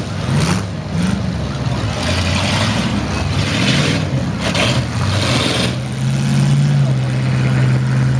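Full-size demolition derby pickup trucks' engines revving up and down as the trucks drive across the muddy arena. About six seconds in this settles into a steady low drone.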